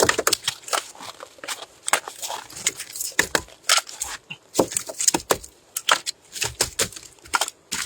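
A rapid, irregular series of sharp clicks and knocks, several a second.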